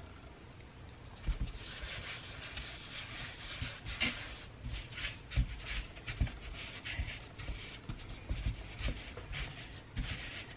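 Floured hands shaping a ball of bread dough on a plastic cutting board: soft, uneven swishes of skin rubbing over the dough, with light thumps against the board, starting about a second in.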